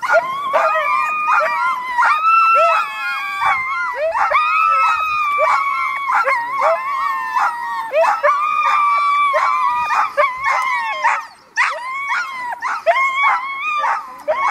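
A team of harnessed sled dogs howling and yelping together, several voices overlapping in a constant din, the excited clamour of dogs hitched up and waiting to run. It drops off briefly about eleven seconds in.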